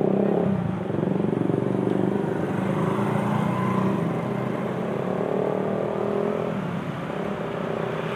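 An engine running steadily close by at an even, low pitch, dipping briefly just under a second in.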